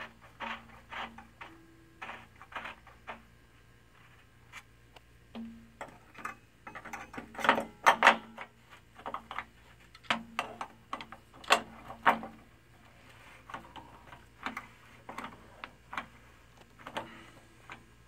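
Irregular sharp clicks and taps of pliers and metal parts being worked at an electric water heater's lower heating element and thermostat while they are fitted, with a denser burst of louder clatter about halfway through.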